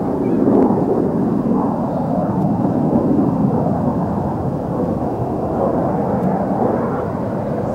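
Jet noise from Kawasaki T-4 jet trainers' twin turbofan engines flying aerobatics overhead: a steady, deep rumble that rises and falls slightly.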